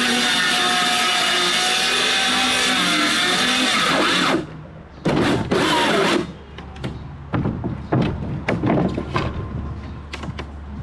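Cordless circular saw cutting through a wooden board, its motor whine wavering under load for about four seconds. It stops, then runs again for a short cut of just over a second. After that come scattered knocks and clatter of wood being handled.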